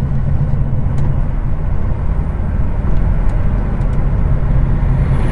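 Heavy truck's diesel engine running with a steady low drone under road noise, heard from inside the cab at low speed.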